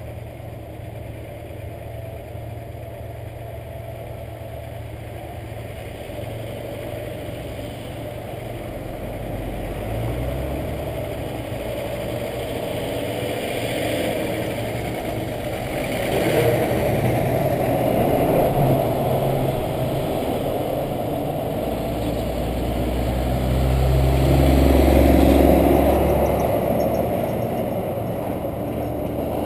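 Road traffic heard from a car waiting in a queue: a steady engine rumble with vehicles passing one after another, each swelling and fading. The loudest is a heavy car-carrier truck going by close, with a deep rumble, a few seconds before the end.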